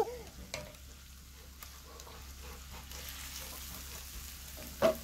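Ground meat sizzling faintly in a cast-iron skillet while a wooden spatula stirs it, with a few sharp taps of the spatula against the pan.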